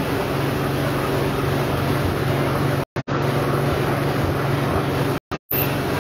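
Steady low mechanical hum under a noisy hiss, like a motor running close by. The sound cuts out completely for brief moments twice, about three seconds in and again near the end.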